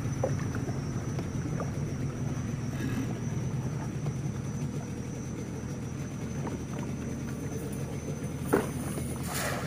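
Small boat's outboard engine idling with a steady low hum. Near the end there is a short knock, then a brief splashy rush as a cast net is thrown and lands on the water.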